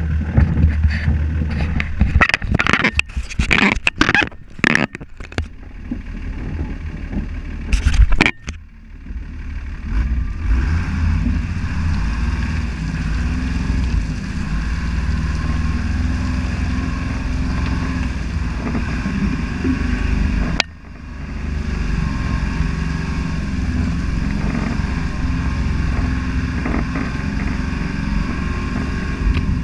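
Toyota HJ61 Land Cruiser's 12H-T six-cylinder turbo diesel running steadily under load as it drives through mud, with tyre and mud noise. In the first several seconds a burst of sharp knocks and scrapes from brush and branches against the vehicle and camera; the sound cuts off abruptly just after 8 s and again about 21 s in.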